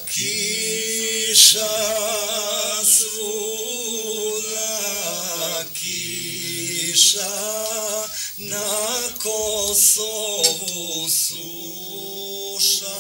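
A man singing unaccompanied, holding long wavering notes in a slow melody, with short breaks for breath.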